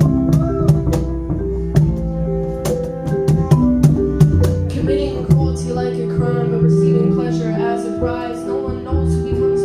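Live ensemble music: sustained cello and flute notes over a drum beat, with a male voice on a microphone.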